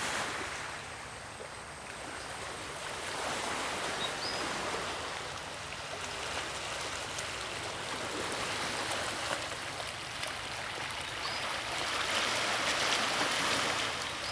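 Small waves washing onto a rocky shore, a steady rush that swells and falls every few seconds, with three faint short chirps.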